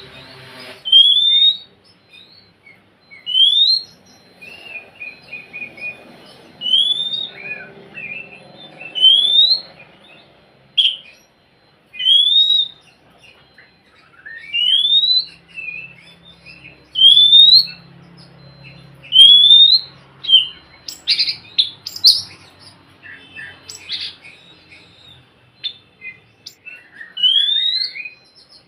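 Oriental magpie-robin singing: a clear rising whistle repeated about every two seconds, with short chattering notes between, and a run of harsher, scratchier notes about three-quarters of the way through.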